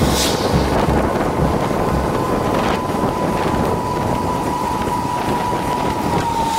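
A steady mechanical whine holding one pitch, dipping slightly near the end, over rushing wind noise on the microphone.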